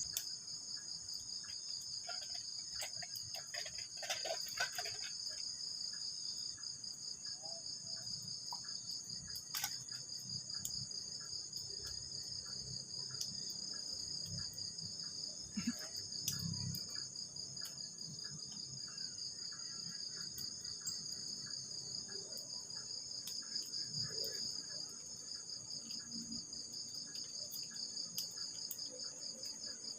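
Insects, likely crickets, trilling steadily in two high-pitched, rapidly pulsing bands. Scattered faint clicks and a few soft low knocks sound over them.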